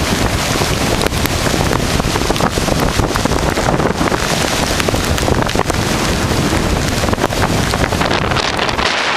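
Tropical-storm wind buffeting the microphone in heavy, continuous gusts, with the ocean surf underneath.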